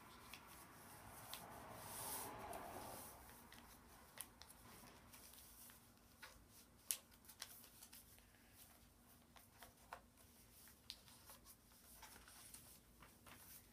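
Faint rustling and crinkling of a sheet of paper being folded and creased by hand: a soft sliding rustle in the first few seconds, then small scattered crackles.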